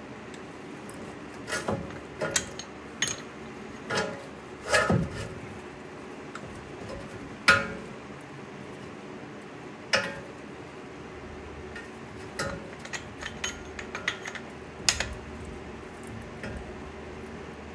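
Metal tools and brake parts clinking and knocking during work on a brake caliper: scattered light taps with a few sharper knocks, the loudest about halfway through.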